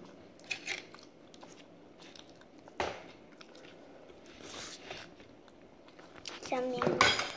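Quiet chewing of instant noodles, with a few soft clicks, the sharpest about three seconds in. A child says a word near the end.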